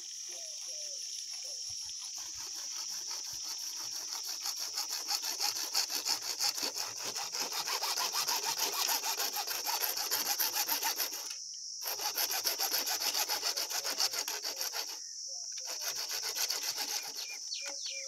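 A bare hacksaw blade held in the hand saws through a white PVC water pipe in rapid back-and-forth strokes. It stops briefly twice in the second half.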